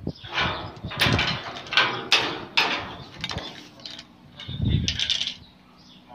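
Clanks and rattles from the steel bar door and hanging chain latch of a welded dog enclosure as the door is handled and opened, several sharp metallic knocks in the first three seconds, then a duller knock near the fifth second.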